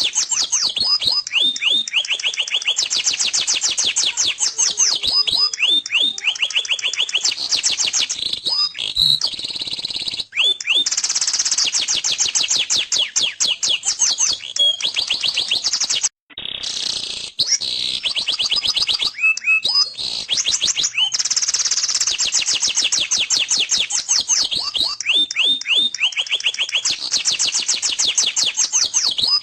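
Domestic canary singing a long, rapid song of fast trills and rolling note runs, with a brief break about halfway through.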